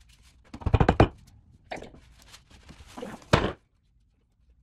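Knocks and thuds from handling a tall cardboard shipping tube and working at its wooden end plug: a cluster of knocks about a second in and one loud thud about three and a half seconds in, after which it stops suddenly.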